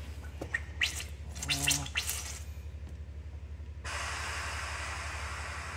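A few light tool clicks, then about four seconds in a sudden steady hiss of pressurized hydraulic oil and air rushing out of a loosened fitting on the excavator's swing motor: the hydraulic tank still held pressure and had not been relieved.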